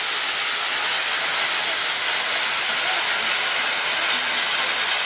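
Steam venting from an old steam engine's boiler: a loud, steady, high hiss.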